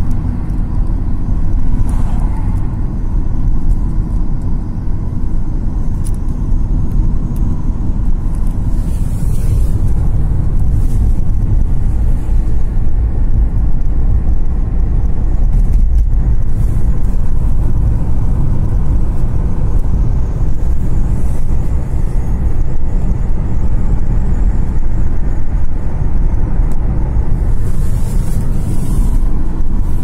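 Steady low rumble of road and engine noise heard from inside a moving car, with a hiss swelling briefly a couple of times.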